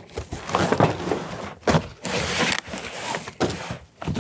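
Plastic wrapping crinkling and a cardboard shipping box rustling and scraping as packed ratchet straps are pulled out of it, with a few short knocks.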